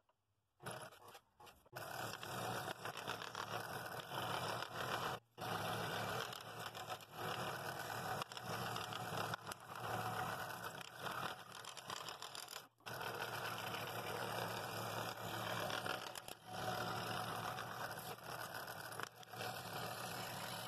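Scroll saw running fast, its blade cutting through half-inch padauk, a hard, dense wood, over a steady low motor hum. The sound drops out suddenly a few times for a moment.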